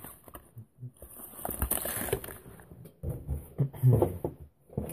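Rustling, crackling and clicking of plastic bait packaging being handled and rummaged through, with a dense crinkly stretch about a second in.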